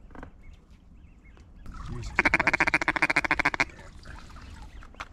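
A fast, even run of duck quacks lasting about a second and a half, starting about two seconds in.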